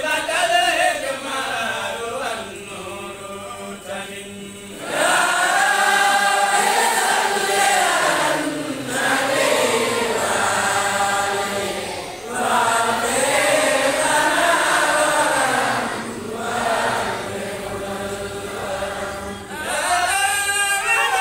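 A crowd of men chanting together in unison, an Islamic devotional chant sung in repeated rising-and-falling phrases about three to four seconds long. It is softer for the first few seconds and fuller from about five seconds in.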